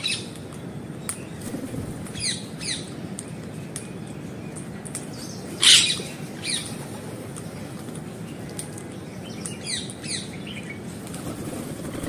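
Caged parakeets giving short, sharp screeching calls that fall in pitch, about seven in all, several in quick pairs, the loudest about six seconds in.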